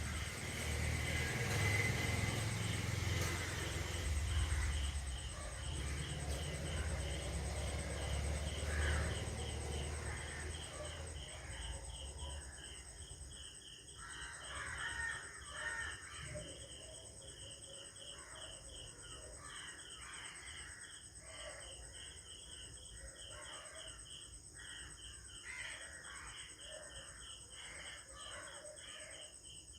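Crows cawing repeatedly, more often in the second half, over a steady bed of insects chirping in an even pulse. A low rumble underneath fades out after about twelve seconds.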